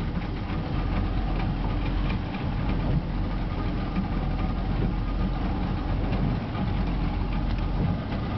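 Boat's outboard motors running steadily at low speed, a continuous low rumble mixed with wind and water noise.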